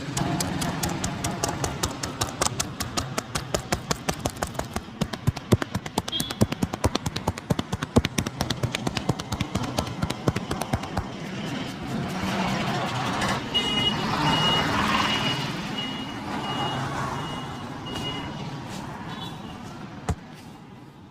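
Rapid hand slaps and taps of a percussive head and body massage, several a second for about the first ten seconds, over street traffic noise. In the second half a high-pitched beep sounds for several seconds, broken by short gaps.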